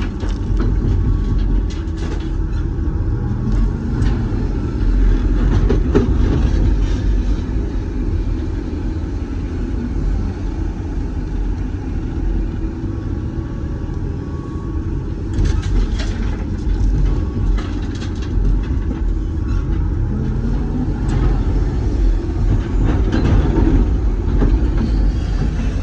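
Doosan DX420LCA excavator's diesel engine and hydraulics running under load, heard from inside the cab, with the engine note swelling and easing as the machine digs and swings. Bursts of rattling gravel come around the middle.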